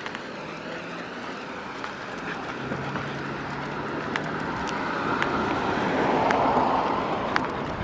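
A car driving past on the road, its engine hum and tyre noise swelling to a peak about six seconds in and then easing off. Scattered light clicks sound over it.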